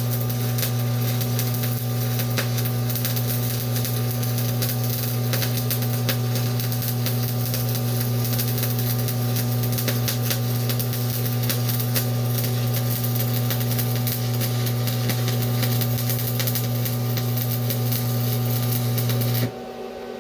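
Stick welding arc burning as the rod is run with its flux coating resting on the steel plate (drag technique): a steady crackle over a low buzz. It cuts off suddenly near the end as the arc is broken.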